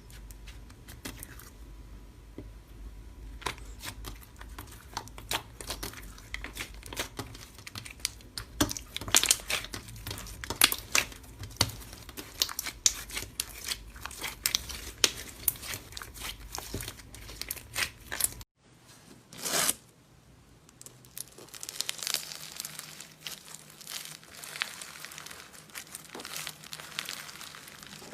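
Slime being squeezed and worked by hand, giving a dense run of sharp crackling pops and clicks. A little past halfway the sound cuts off suddenly, then resumes as a softer, hissier crackle.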